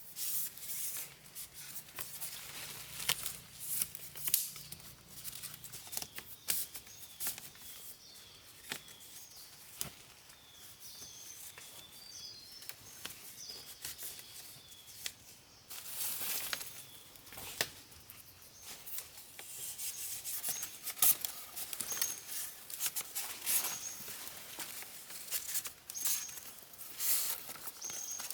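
Close hand-work noises: irregular scraping, snapping and rustling, as of cutting or handling plant material, busiest in the second half. Faint, short high chirps are heard in the background now and then.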